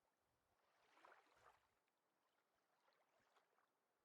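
Near silence, with one faint, soft, brief sound about a second in.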